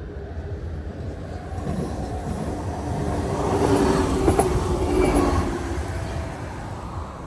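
A vehicle passing by over a steady low rumble, building to its loudest about four to five seconds in and then fading away.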